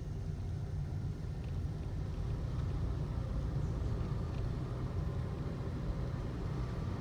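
Cabin noise of a 2012 Toyota Aqua hybrid accelerating gently: a steady low rumble of road and drivetrain, growing slightly louder. The abnormal noise that comes on when coasting is hardly present under acceleration.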